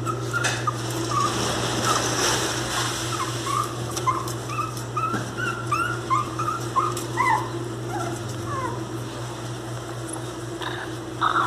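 Miniature pinscher puppies crying: a string of short, high-pitched whimpering cries, one or two a second, that die away about eight or nine seconds in. Two louder short sounds follow near the end.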